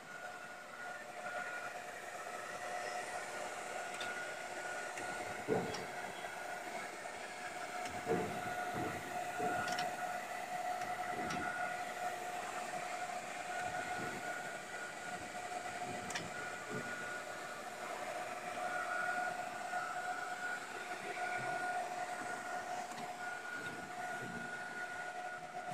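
Semi-automatic folder gluer for corrugated cartons running: a steady machine whine with a held tone over a mechanical hum, broken by scattered short knocks.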